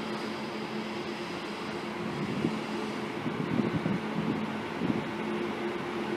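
Trenhotel passenger train rolling slowly into the platform during shunting, with a steady low hum. A run of irregular knocks and clatter from the wheels over the track comes in the middle.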